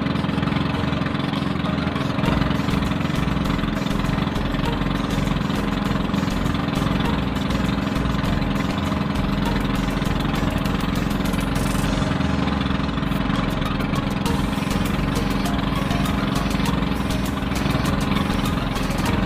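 Small engine of a motorised outrigger fishing boat running steadily under way.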